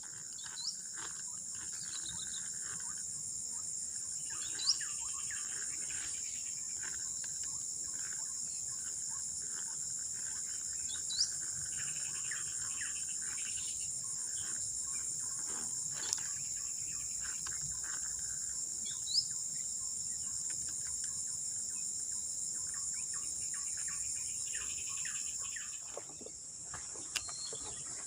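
Steady high-pitched drone of an insect chorus, with three short rising chirps spread through it and a single sharp click near the middle.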